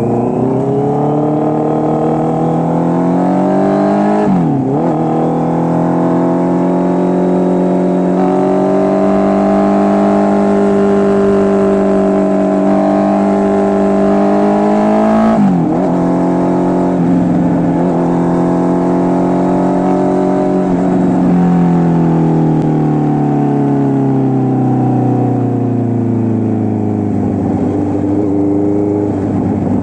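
Honda CB650R's inline-four engine through an SC Project full exhaust system, the bike under way. The engine note climbs and then holds at a cruise, with a quick gear change about four seconds in and another around halfway. The pitch then slowly falls as the bike slows near the end.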